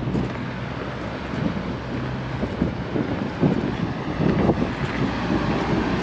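Wind buffeting the microphone over the steady low hum of running rooftop air-conditioning units.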